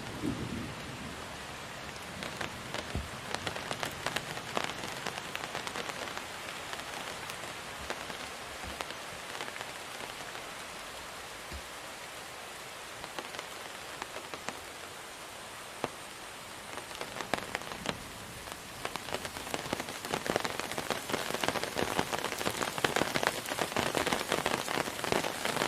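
Steady rain falling, a hiss dotted with the patter of individual drops hitting a surface, growing heavier and louder over the last several seconds.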